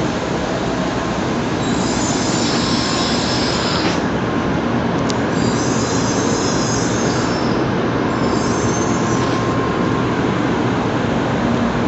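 Tokaido Shinkansen train running: a steady rumble and rushing noise, with patches of high hiss that come and go several times.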